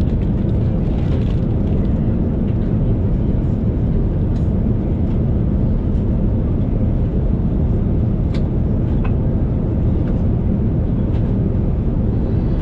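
Steady low rumble of a Boeing 787-9's engines and airflow heard from inside the passenger cabin, with a few faint clicks.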